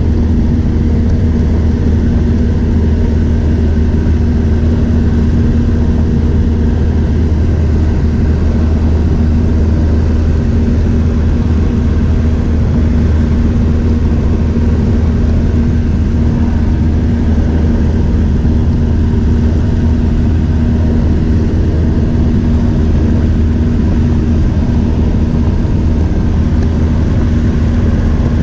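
High-wing light aircraft's engine and propeller running steadily in cruise, heard from inside the cabin as a constant loud hum with a few fixed low tones.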